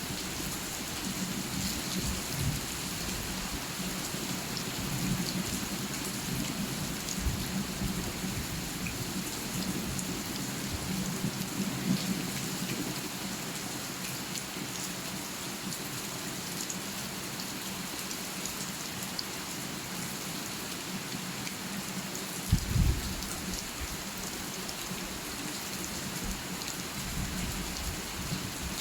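Steady rain falling, an even hiss with low rumbles now and then. A short, loud low thump comes about four-fifths of the way through.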